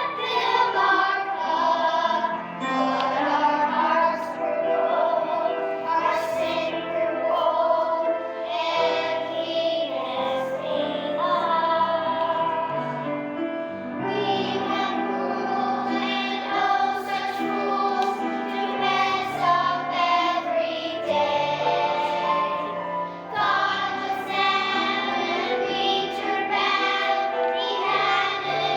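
A children's choir singing a song with instrumental accompaniment and a steady bass line.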